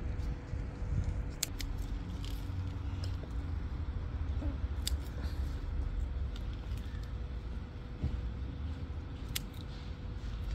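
Scissors snipping through green onion stalks, a few short sharp snips spaced irregularly, over a steady low rumble.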